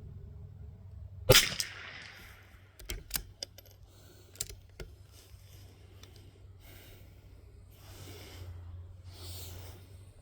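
A single shot from a .22 LR bolt-action rifle about a second in, followed by a series of metallic clicks as the bolt is worked to eject the case and chamber the next round. Soft breathing follows near the end.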